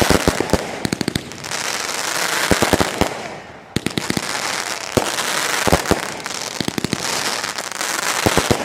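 AFW Glitter & Doom 500-gram fireworks cake firing: several quick volleys of sharp reports from the shots and their breaks, with dense crackling from the crackling breaks filling the gaps between them.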